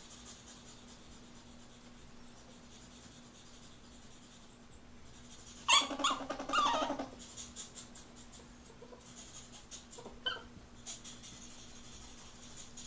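Ferret vocalizing during mating: a loud burst of rapid, pulsed squeaking about six seconds in, lasting about a second and a half, then a shorter, fainter cry about ten seconds in, with light scattered clicks in between.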